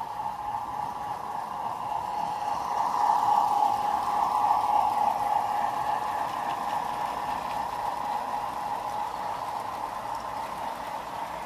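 Model garden-railway train running on the track, a steady rolling whirr that swells to its loudest a few seconds in and then eases slightly as the train rounds the bend.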